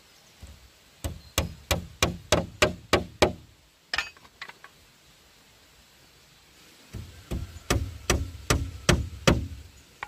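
Two runs of quick, evenly spaced blows of a tool on bamboo, about three a second. The first run has about eight strikes, and a second run of about seven follows a few seconds later.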